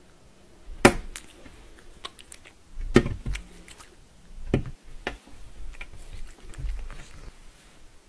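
A few sharp taps with dull low thuds under them, spread out irregularly with lighter clicks between, from cats' paws shifting on a glass panel.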